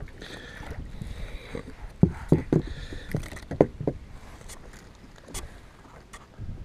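Handling noises on a kayak while a small bass is being landed: a run of five or six thumps and knocks over about two seconds, starting about two seconds in, then a few lighter clicks.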